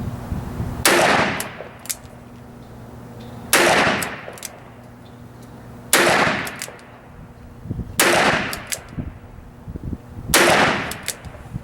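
Smith & Wesson 625 revolver firing .45 ACP single action: five shots spaced about two to two and a half seconds apart, each followed by a short echo.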